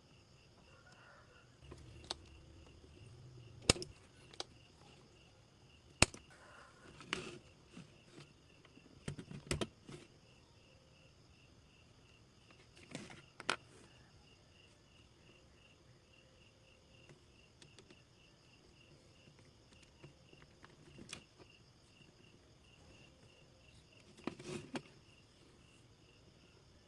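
Crickets or similar insects chirping steadily in the background, with scattered sharp clicks and knocks over them, the loudest a few seconds in and again around the middle.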